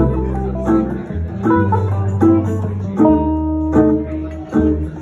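Live acoustic trio playing a tune: plucked upright double bass holding low notes under acoustic guitar and archtop guitar, with single picked guitar notes and chords.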